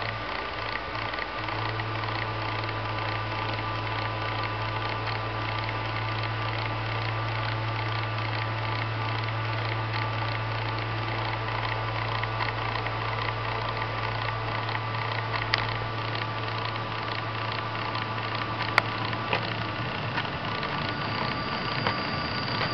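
Sapphire Radeon HD 5770 graphics card cooling fan running steadily with a mechanical whir and several steady tones over a low hum, the sound of the fan working improperly. The low hum fades out near the end, and there are two sharp clicks in the second half.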